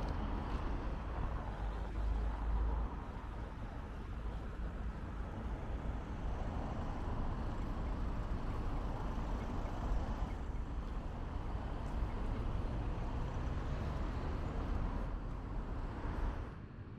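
City street traffic: vehicles passing with a steady rumble of engines and tyres, easing off shortly before the end.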